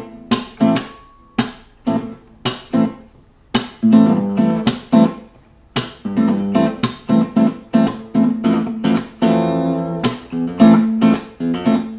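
Faith acoustic guitar played fingerstyle as rhythmic block chords, the notes of each chord plucked together and left to ring. A few separate chord strikes at first, then a busier, syncopated rhythm from about four seconds in.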